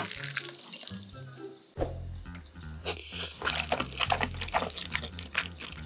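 Background music with a steady beat; a deeper bass line comes in about two seconds in. From about three seconds in, jajangmyeon noodles in thick black bean sauce are slurped and chewed in a run of wet sucking noises.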